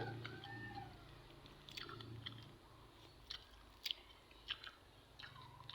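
Person chewing fish bones, with short, sharp crunches and mouth clicks coming every half second or so.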